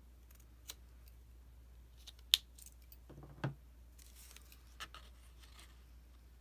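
Scissors cutting a paper border strip: a few scattered snips and clicks, the loudest a sharp click about two and a half seconds in, followed by a soft thump and light paper rustling as the pieces are handled.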